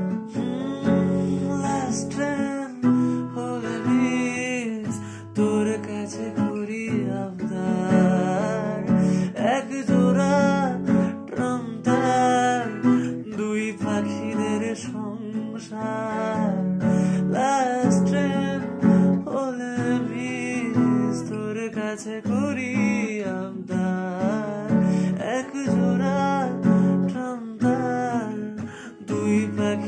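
A man singing a Bengali song in a sustained, wavering voice, accompanying himself by strumming an acoustic guitar.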